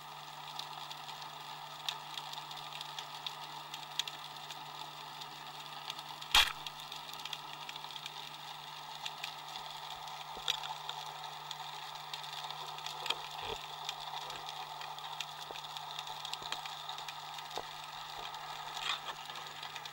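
Underwater steady low hum and hiss with scattered small clicks, and one loud sharp crack about six seconds in: a speargun firing its shaft into a fish.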